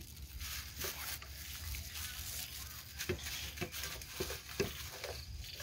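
Food being mixed by a plastic-gloved hand in an aluminium tray, a soft rustling, then a few light knocks about three to four and a half seconds in as herbs are tipped from a bowl onto the tray.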